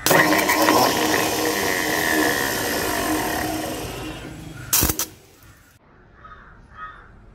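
Old Escorts tractor's diesel engine giving a steady mechanical whir for about four and a half seconds, ending in a sharp clunk, after which it goes much quieter.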